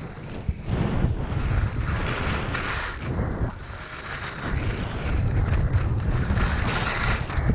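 Wind buffeting the microphone of a skier speeding down a groomed piste, a steady low rumble, with the hiss of the skis on packed snow swelling during turns, about two seconds in and again near the end.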